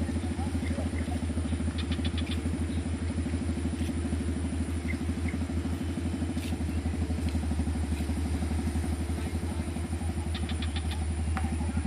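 A nearby engine idling steadily with an even low pulse. A short run of quick ticks sounds about two seconds in and again near the end.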